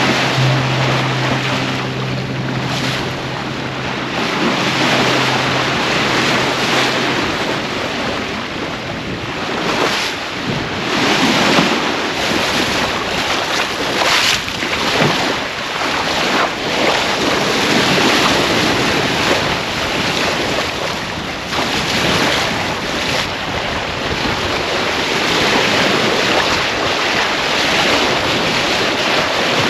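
Wind and waves rushing around a sailboat under way, with gusts buffeting the microphone. A steady low hum runs underneath at first and fades out about seven seconds in.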